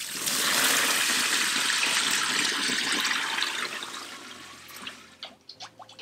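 Water poured from a plastic basin into the tub of a portable mini washing machine: a steady rushing pour that fades out about four to five seconds in, followed by a few light knocks.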